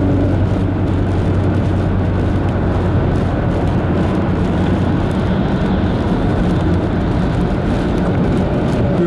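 Steady low rumble of a running vehicle with a constant low hum, loud and even throughout.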